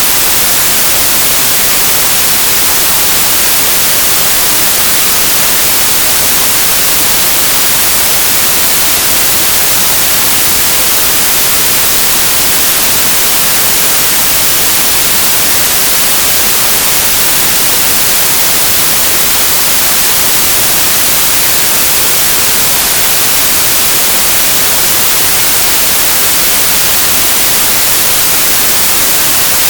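Synthesized white noise, a steady, bright hiss that does not change.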